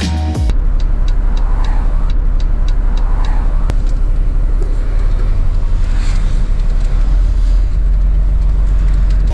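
Loud, steady low rumble of a moving bus heard from inside the cabin: engine and road noise, wobbling slightly in level. A run of faint, rapid ticks sounds in the first few seconds.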